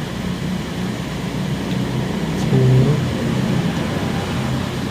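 Steady low hum and hiss of background noise picked up by the microphone, with a brief hummed vocal sound from the narrator about two and a half seconds in.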